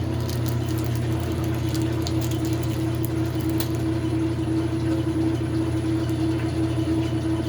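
Washing machine running a rinse cycle: a steady motor-and-pump hum with a clear tone in it, and light crackles over the first few seconds. The tub is not spinning, which the owners put down to an overloaded tub of heavy, waterlogged towels.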